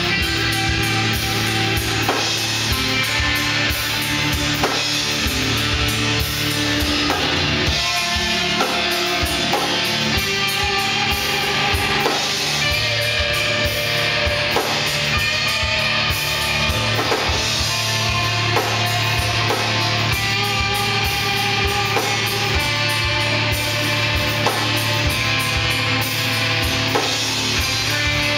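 Heavy rock band playing live: distorted electric guitars, bass guitar and a drum kit keeping a fast, steady beat.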